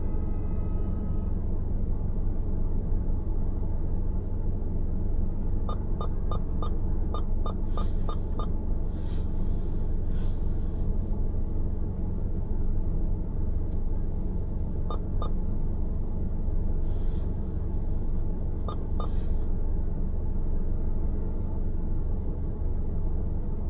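Car driving on a road: a steady low rumble, with a quick run of short ticks about six seconds in, a few more later, and several brief hissy swooshes.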